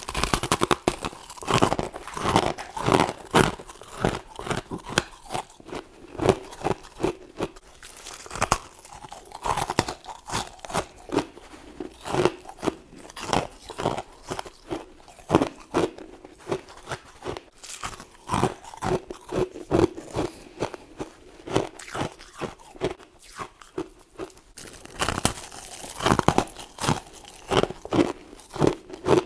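A person biting into and chewing mouthfuls of frost, with rapid crisp crunches that come in clusters of louder bites between steadier chewing.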